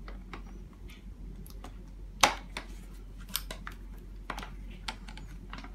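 Pliers clicking against the nut and axle of a Mountain Buggy Urban Jungle stroller's front swivel mechanism as the nut is tightened. Scattered short sharp metal clicks, the loudest about two seconds in.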